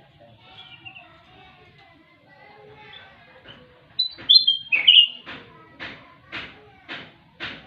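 Kutilang emas songbird singing. Soft twittering gives way to a loud burst of clear whistled notes about four seconds in, followed by a run of evenly spaced harsh chip notes, about two a second.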